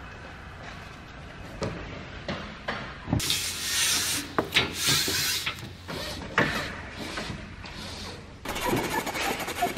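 Aluminium screen-frame profiles and a hand tool knocking and scraping on a wooden workbench: several sharp knocks, with longer rasping scrapes in the middle and again near the end.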